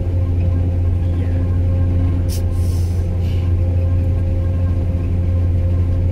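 Self-propelled crop sprayer's engine running steadily as it drives, a low drone heard from inside the cab. About two and a half seconds in comes a brief hiss, followed by a fainter one a second later.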